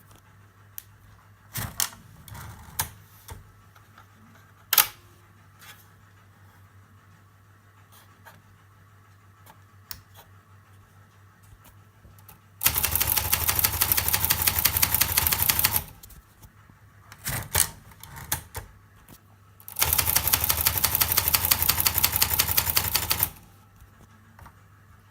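Olympia Traveller C portable typewriter mechanism clicking: scattered single clacks at first, then two runs of rapid, continuous clicking of about three seconds each, the second starting about four seconds after the first ends.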